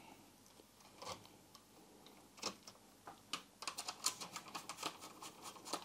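Faint, scattered clicks and taps of a screwdriver and hard plastic parts being handled on the back of a BMW E30 instrument cluster, coming quicker and closer together in the second half.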